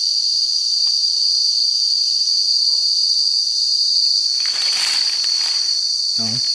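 Insects in the forest droning with one steady, high-pitched buzz. A short rustling noise comes about four and a half seconds in.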